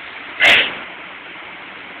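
A single sharp metallic bang from a Baykal BPM-T CNC turret punching machine, a punch stroke through sheet metal about half a second in, over a steady background noise.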